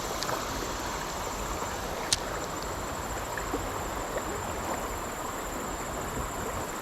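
Creek water running steadily over rocks in a current, with a single sharp click about two seconds in.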